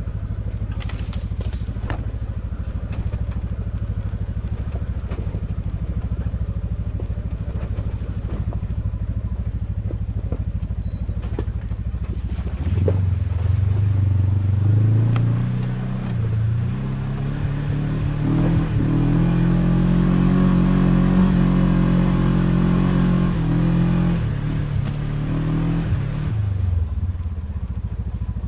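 Off-road vehicle engine running steadily at low revs, then revving up about halfway through and holding higher revs for over ten seconds before easing back down near the end.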